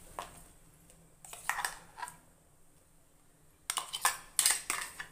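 Spoon clinking and scraping against a cooking pan and a mixer-grinder jar as ground carrot paste is scraped out into boiling milk. There are a few scattered knocks at first, then a quick run of sharp knocks near the end.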